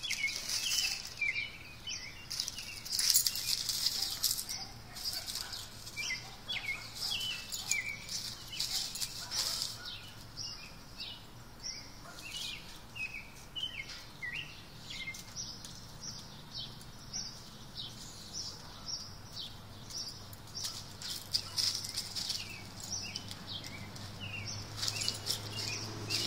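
Dry leaves rustling and crackling in irregular bursts as a small dog noses and paws through a leaf pile, with many short high-pitched squeaks scattered throughout.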